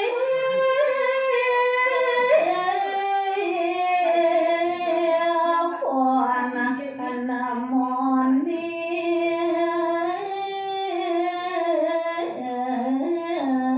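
A woman singing a Balinese tembang (sinom verse from a geguritan) solo and unaccompanied, in long held notes that step up and down with small ornamental turns.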